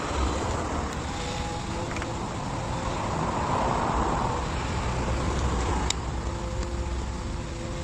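Road traffic noise: a steady rumble and hiss of passing cars, swelling as a vehicle goes by about three to four seconds in.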